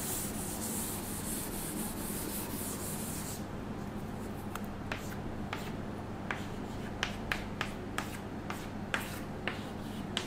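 A chalkboard being wiped clean, a steady hissy rub for about the first three and a half seconds, then chalk writing on the board: short sharp taps and scratches with each stroke.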